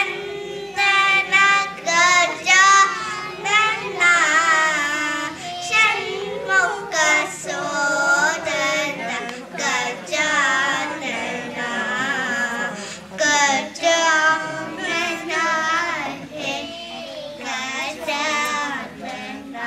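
Young girls singing a devotional song in sustained, wavering phrases with short pauses for breath.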